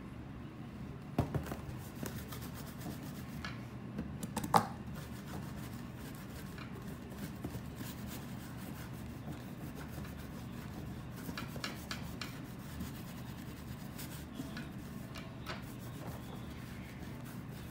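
A terry-cloth towel rubbing and wiping over a cardboard box, steady scrubbing throughout. A couple of sharp knocks stand out, about a second in and the loudest about four and a half seconds in, with small ticks now and then as the box is handled.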